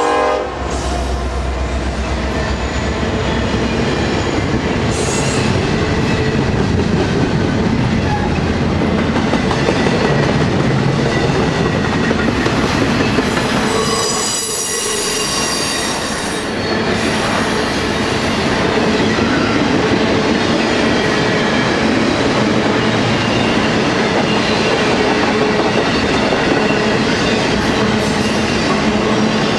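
A Norfolk Southern double-stack intermodal train passes close by. It opens with three EMD diesel locomotives, SD70M-2s and an SD60M, rumbling past as a horn blast cuts off, then a long string of container cars with steady wheel-on-rail clatter. A high wheel squeal rises over the clatter about halfway through.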